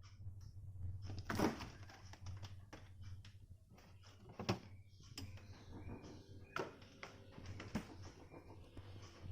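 Scattered knocks and clinks of cooking utensils and cookware over a steady low hum, the four loudest about a second and a half, four and a half, six and a half, and eight seconds in.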